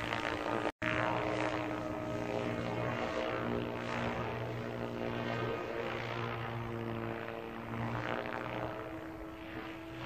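SAB Goblin 770 electric RC helicopter flying high overhead: a steady whine from its motor and rotor blades, its tone sweeping as it moves. The sound cuts out briefly just before a second in.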